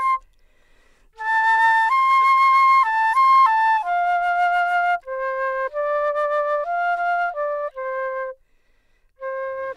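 Background music: a solo flute melody, one held note at a time, with a brief pause about a second in and another near the end.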